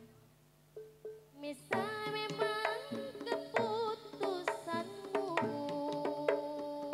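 Jaranan gamelan music: after a short lull, hand-drum strokes and a wavering melody line come in about a second and a half in and carry on over a steady rhythm.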